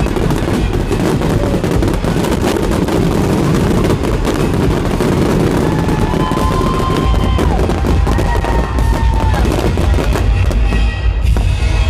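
Fireworks going off in a dense barrage: rapid, overlapping bangs and crackling with no break.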